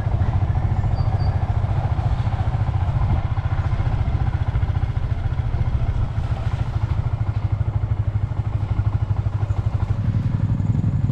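Small motorcycle engine running steadily under way, its low, even firing pulses constant. The engine note thickens near the end.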